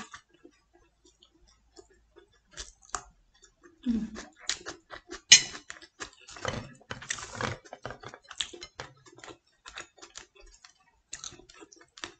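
Chopsticks and a spoon clicking and scraping against a plate while picking apart a steamed fish, mixed with chewing and mouth sounds. The clicks come in irregular runs, with one sharp click about five seconds in the loudest.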